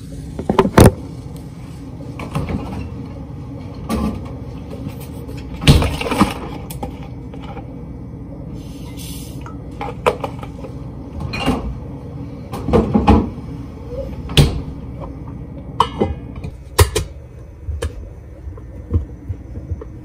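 Kitchen handling sounds: a cabinet door, a carton and a stainless steel mug with its lid being knocked and set down on the counter. They come as a series of separate knocks and clatters over a steady low hum.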